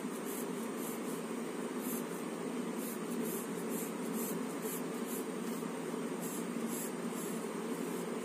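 Pencil lead scratching on paper in short repeated strokes, a couple a second, over a steady low room hum.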